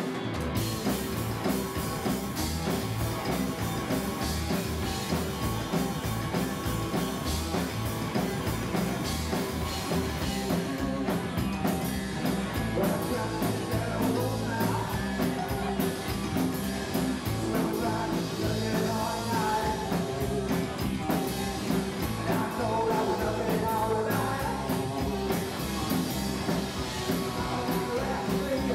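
A rock and roll band playing live: upright double bass, drum kit and electric guitar, with a male singer.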